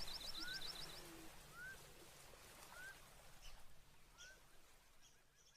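Birds calling on a nature sound-effect track. A fast trill of high ticks sounds in the first second, and a short rising whistle repeats about once a second over a faint hiss, all fading out at the end.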